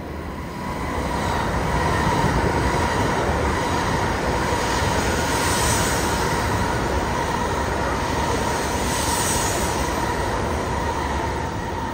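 JR East E7 series Hokuriku Shinkansen train running through a station without stopping. A loud, steady rush of rolling and wind noise carries a thin steady whine, building about a second in and easing off near the end.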